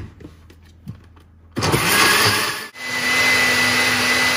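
Countertop jug blender switched on about a second and a half in, blending a mango, milk and yogurt mixture. After a brief break near the middle it runs on steadily with a motor whine.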